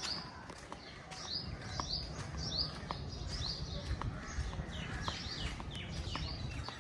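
Birds chirping: many short, high notes that fall in pitch, repeating a few times a second, with fainter higher pips between them, over a steady low rumble.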